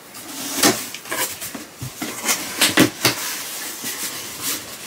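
Rummaging in a cardboard shipping box, with a string of short scrapes, knocks and rustles as hands reach in and move the packed skeins of yarn against the cardboard.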